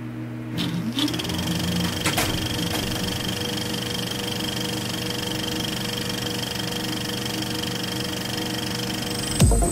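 Electric motors of an FPV quadcopter running, a steady buzzing whine with a brief rise in pitch about half a second in.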